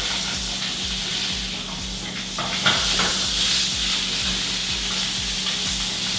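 Salmon frying in butter in a pan, with a steady sizzle and a few light knocks about halfway through.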